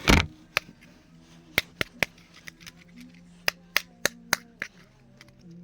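About ten sharp taps and clicks on the sound module of a 1996 Touch Tone Interactive alien T-shirt, in uneven groups, with no voice phrase playing back. The toy is not triggering, which the owner puts down to batteries slightly the wrong size.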